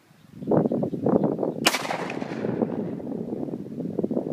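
A single shot from a 9mm Smith & Wesson SD9VE pistol about a second and a half in, with a short ringing tail. A loud, rough low rumbling noise sets in just before the shot and carries on under it.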